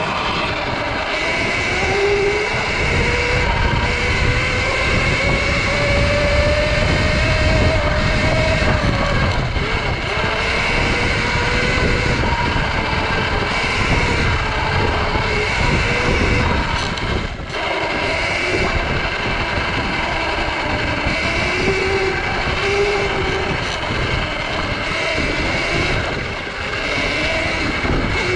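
Sur-Ron electric dirt bike's motor whining while riding, its pitch rising and falling with speed, over a heavy low rush of wind and tyre noise.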